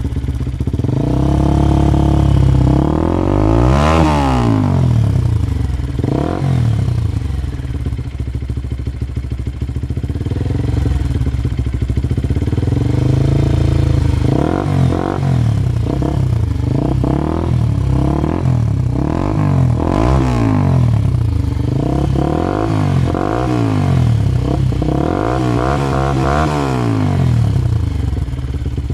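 Bajaj NS 200's single-cylinder engine through a Cott RS 7R aftermarket exhaust, idling and revved. There is one longer rev a few seconds in, a steady idle through the middle, then a run of quick throttle blips over the second half, each rising and dropping back to idle.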